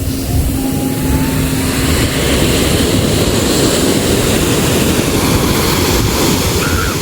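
Sea waves washing with wind buffeting the microphone, a steady rushing noise. A steady low hum underneath stops about two seconds in.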